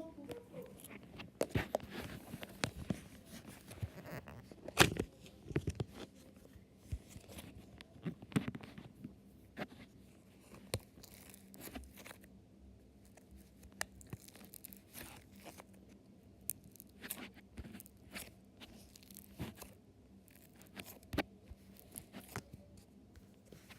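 Floam slime being squeezed and worked by hand, its foam beads giving off irregular crackles and sharp pops.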